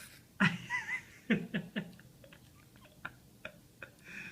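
A young child's mouth noises on a popsicle: a sudden loud squeaky burst about half a second in, then three quick sharp sounds, then fainter smacking clicks.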